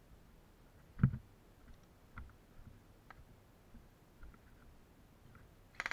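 Movement noise of a player moving on foot through the woods: a heavy thump about a second in, a few light ticks, and a quick cluster of sharp clicks near the end.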